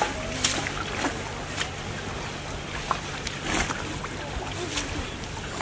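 Water splashing and sloshing as men haul a wet fishing net by hand through the shallows, with a few sharper splashes, over a steady low hum and faint voices.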